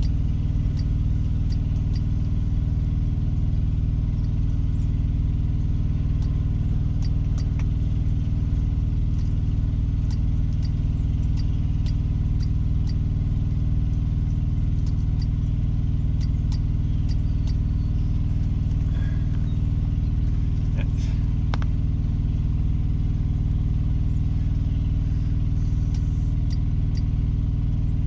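Peterbilt 389 semi truck's diesel engine idling steadily, heard from inside the cab.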